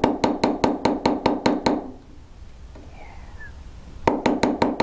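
A light hammer tapping a bezel-setting punch in quick, even strokes, about five a second, folding a bezel cup's wall in over a set stone. The tapping stops for about two seconds midway and starts again near the end.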